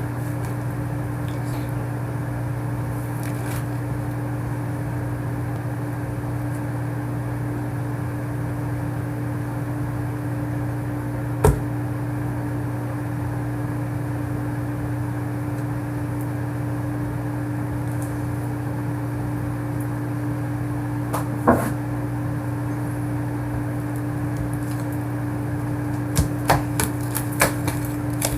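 A steady low electrical hum, with a sharp click about eleven seconds in, another about twenty-one seconds in, and several light clicks and taps near the end.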